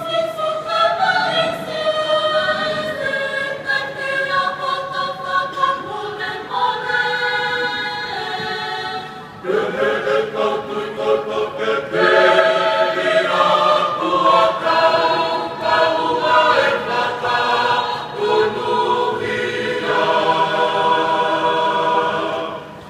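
A Tongan church choir of men and women singing in harmony under a conductor, holding long chords. There is a short break about nine and a half seconds in, and the singing stops near the end.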